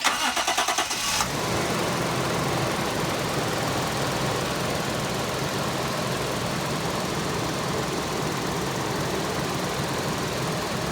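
A car engine cranked by its starter for about a second, with rapid even pulses, then catching and settling into a steady idle.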